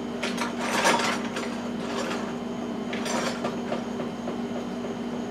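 Irregular clicking and clattering of hard objects being handled, over a steady low hum.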